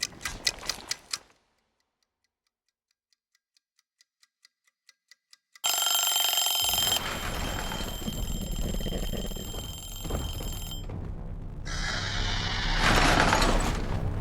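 A quick run of clicks, then a pause, then a mechanical timer ticking, growing louder. It breaks into a loud ringing alarm that lasts about five seconds over a deep rumble, and a harsh noisy surge swells near the end.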